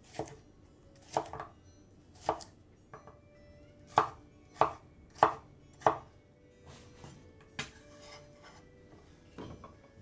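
Chef's knife cutting a red bell pepper on a bamboo cutting board: separate crisp chops, about one a second at first, then four quicker ones in a row near the middle, then two more spaced out.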